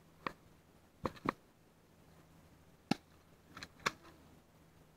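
Scattered airsoft pistol shots: about six short, sharp cracks at irregular intervals, two in quick succession about a second in and another pair near the four-second mark.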